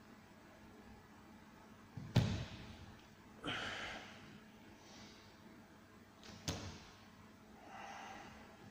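Two heavy thumps on a training mat about four seconds apart, from a barefoot person moving his weight during a floor exercise. Each is followed a second or so later by a forceful breath out.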